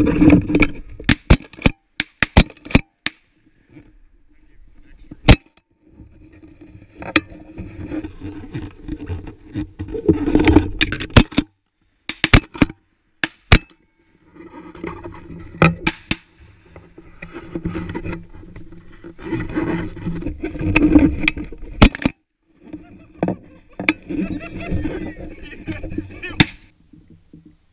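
Shotgun blasts during a duck hunt: a rapid cluster of sharp reports in the first few seconds, then more scattered shots. Stretches of rustling noise fill the gaps between them.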